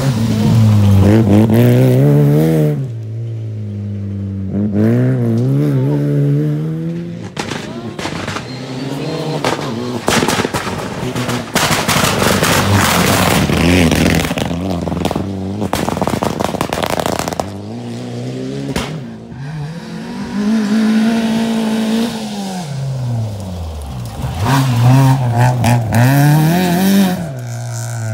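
Rally cars going flat out on a gravel stage, engines revving up and dropping back through gear changes as they pass. Through the middle, as a Mitsubishi Lancer Evolution's turbocharged four-cylinder goes by, the engine is buried under a loud crackle of sharp cracks and spraying gravel. The revving rises and falls again near the end.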